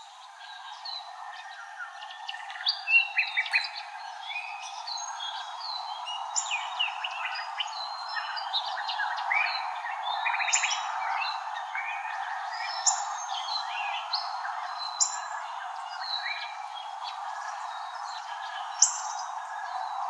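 Many birds chirping and singing at once, short calls and quick whistled glides overlapping, over a steady background hiss.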